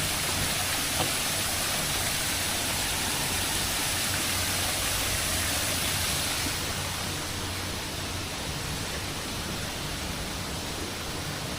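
Steady rushing water, an even hiss with no clear rhythm, easing slightly about two thirds of the way through.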